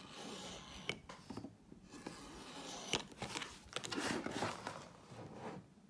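X-Acto craft knife scratching along a ruler as it scores a cut line into a notebook's cover, with a couple of light clicks and rustling as the ruler and notebook are handled.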